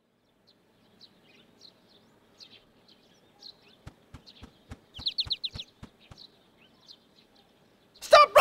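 Soundtrack countryside ambience of scattered bird chirps and tweets, with a quick run of chirps about five seconds in. Under them, a row of about nine soft, evenly spaced knocks, roughly four a second, runs between about four and six seconds in. A loud shouting voice breaks in at the very end.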